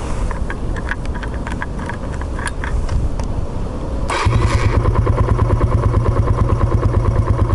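Suzuki GN125H's single-cylinder four-stroke engine starting about four seconds in and settling into a steady, evenly pulsing idle, freshly serviced at 10,000 km. Before it starts there are a few scattered clicks.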